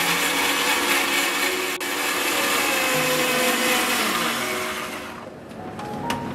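Bosch mixer grinder running at full speed, grinding tomato, ginger, garlic and green chilli into a fine paste, then switched off about four and a half seconds in, its motor pitch falling as it winds down. A couple of sharp clicks follow near the end as the jar is handled.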